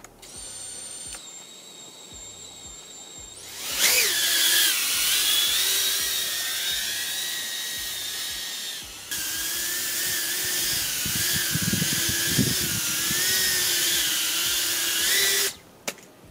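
Small FPV quadcopter's motors and propellers whining. After a faint steady tone, the motors spool up about three and a half seconds in and whine loudly and high, the pitch rising and falling with the throttle, then cut off abruptly near the end.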